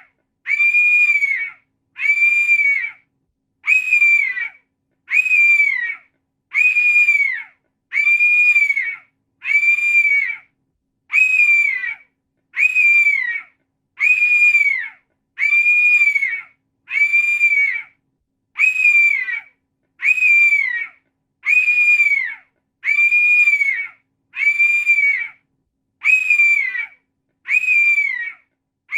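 Hawk cry: a loud, high, scratchy scream about a second long that droops in pitch at the end, repeated over and over about every second and a half.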